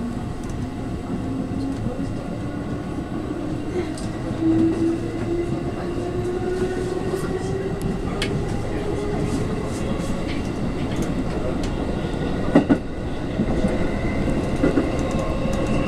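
Cabin of a JR West 221 series electric train under way: the traction motor whine rises in pitch over the first several seconds as the train gathers speed, then holds steady. Wheels clack over the rail joints throughout, with one sharp knock about twelve and a half seconds in.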